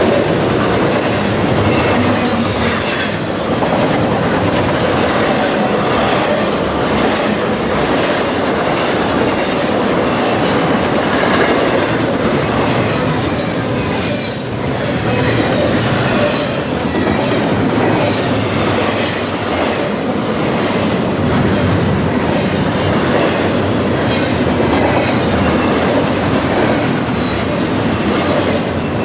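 Railway cars of a passing train rolling by: steady wheel-on-rail noise with repeated clicks from the rail joints and brief high wheel squeals.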